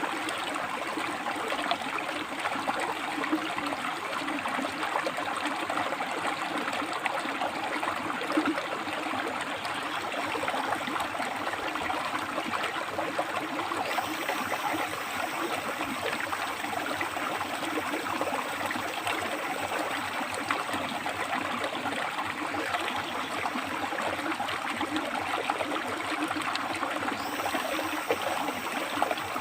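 A rocky river flowing, water splashing and gurgling steadily between rocks.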